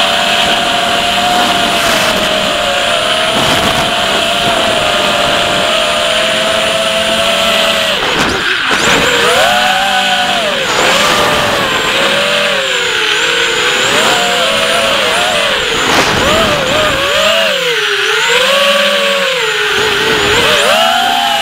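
Brushless motors and propellers of a 250 mm FPV race quadcopter (Racerstar 2204 2300KV motors, 5045 props) whining over a steady rush of air. The pitch holds steady for about eight seconds, then swoops up and down again and again as the throttle is worked through freestyle moves.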